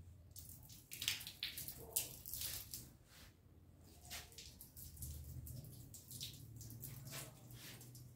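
Water from a hose splashing and spattering onto a motorcycle, in uneven bursts, loudest about one and two seconds in.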